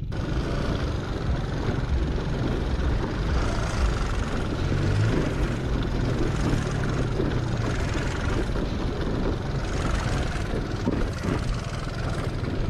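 Aprilia SR 150 scooter's single-cylinder engine running as the scooter rides over a rough dirt track, under a steady rumble of wind and road noise on the microphone. The engine note comes up more clearly for a few seconds around the middle.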